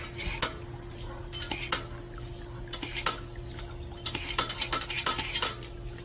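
Irregular clicking and clattering as a dog paws at a plastic step-on water fountain, the taps coming thicker in the second half, over a faint steady hum.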